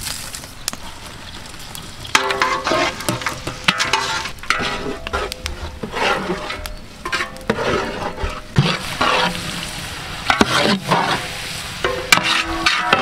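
Long metal ladles stirring and scraping sliced onions frying in large aluminium cooking pots, with sizzling. The scraping strokes start about two seconds in and repeat irregularly, the ladles now and then ringing briefly against the pot walls.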